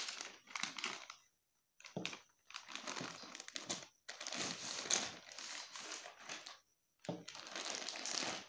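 Plastic packaging crinkling in irregular bursts as a plastic courier mailer is handled and a backpack in a clear plastic wrapper is pulled out of it, broken twice by abrupt silent gaps.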